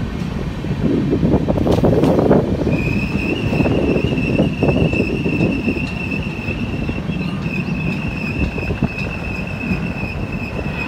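Indian Railways passenger train running, heard from outside the side of the moving coach: steady rumble and rush of the wheels and wind. From about three seconds in, the steel wheels squeal on the rails in one steady, high-pitched tone.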